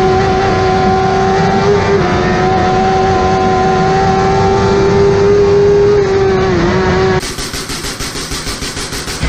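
A vehicle engine held at steady high revs with a constant pitch, dipping briefly just before it cuts off abruptly about seven seconds in; a quieter, rapidly pulsing sound follows.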